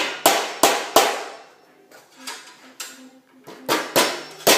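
Hammer driving staples into a wooden post to fasten a bare copper ground wire: a quick run of sharp blows, about three a second, then a pause of about two seconds with a few light taps, then another run of blows near the end.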